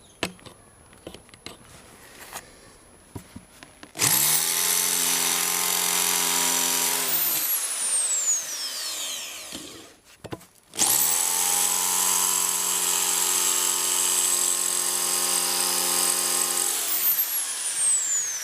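Power drill drilling out a stripped bolt in an inline skate frame, in two runs of about three and six seconds, starting about four seconds in. Each run starts with a quick rise in pitch and ends with a falling whine as the motor spins down.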